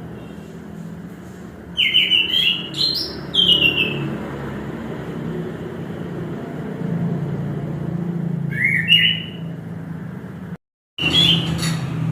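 Orange-headed thrush singing: three short bursts of quick, fluttering notes that step up and down in pitch, over a steady low rumble.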